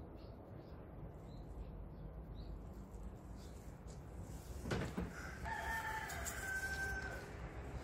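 A rooster crowing once, a call of a few pitched notes lasting about a second and a half, starting about five seconds in. Just before it there is a single sharp knock.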